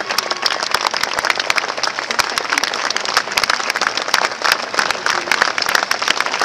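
Large crowd applauding, many hands clapping densely and steadily.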